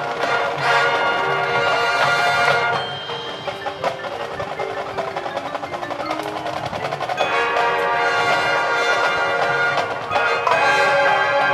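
High school marching band playing. The full band holds sustained chords, then about three seconds in drops to a quieter passage of fast, dense percussion strikes. The full ensemble comes back in around seven seconds in, with a brief dip near ten seconds.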